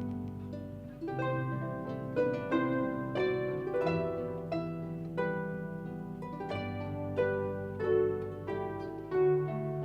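Harp music: plucked notes of a melody ringing over held bass notes, a few notes a second.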